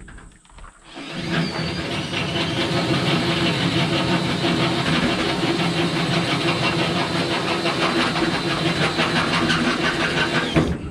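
A motor-driven machine running steadily, with a fast, even pulsing. It starts about a second in and stops abruptly near the end.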